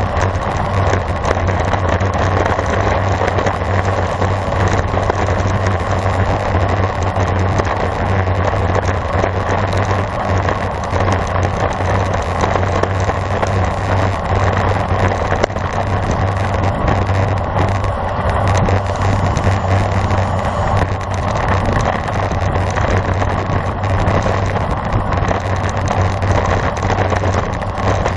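Steady rush of wind and road noise from a road bicycle being ridden at speed, with a constant low rumble and no break or change.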